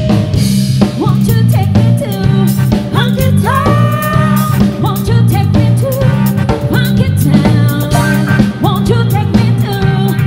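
Live band playing: drum kit, bass and electric guitar under a woman singing lead, her notes sliding up into long held pitches.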